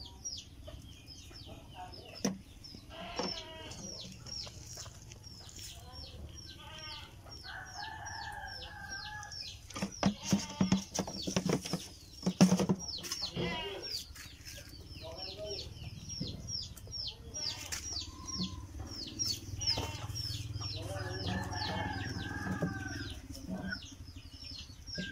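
Birds chirping rapidly and continuously, high short down-sweeping calls several times a second, with a longer wavering call twice, and a cluster of knocks and scuffling near the middle.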